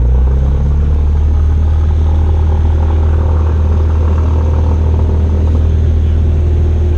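Cessna 172's piston engine and propeller running with a loud, steady drone, heard from inside the cockpit.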